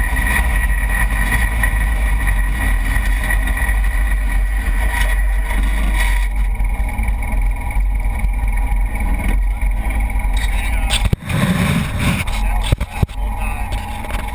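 Polaris RZR-S side-by-side running along a dirt track, a steady, loud engine drone mixed with wind and road noise. About eleven seconds in the sound briefly breaks off, and a few sharp knocks follow near the end.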